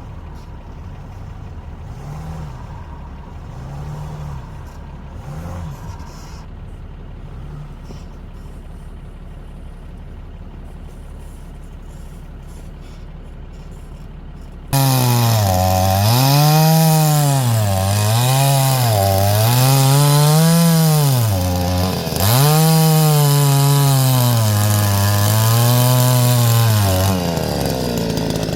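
Chainsaw cutting firewood: a quieter low engine hum for the first half, then the saw comes in suddenly and loud about halfway through, its engine pitch rising and dropping again and again as it works through the wood.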